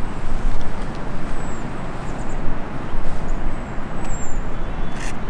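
Strong gusting wind buffeting the microphone: a loud, rough rumble that rises and falls.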